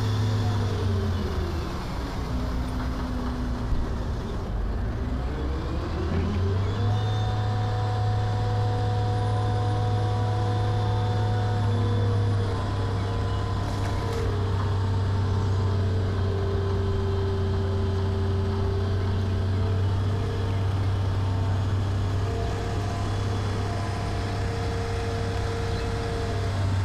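Crane engine running while a sailboat hangs from its cables. The engine note sinks over the first few seconds, climbs back about six seconds in, then holds steady, with one sharp click about halfway.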